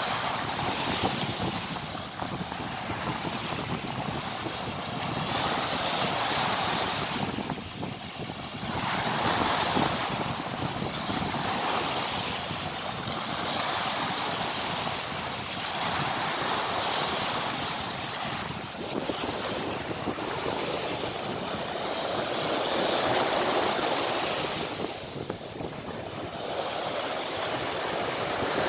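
Surf washing up the beach, a noisy rush that swells and fades every few seconds as waves break and run out.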